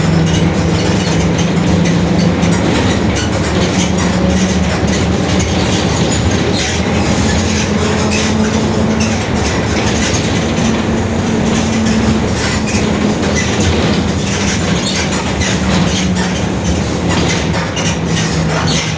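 Mercedes-Benz OF-1721 bus's rear differential droning very loudly while driving: a steady low hum that rises and falls in pitch with road speed, over road noise and rattles.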